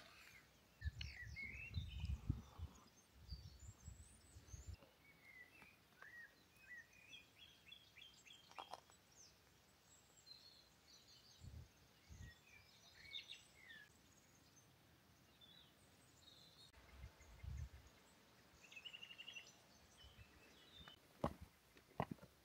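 Quiet outdoor ambience with faint birdsong: scattered short chirps and calls from small birds. Low rumbles come twice and a few soft clicks near the end.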